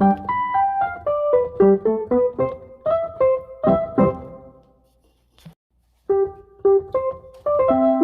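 Background piano music: single struck notes ringing and fading, a short break about five seconds in, then the playing resumes.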